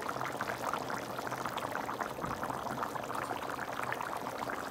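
Thick fish-head curry boiling hard in a wide pan on medium-high heat: a steady, dense bubbling and popping.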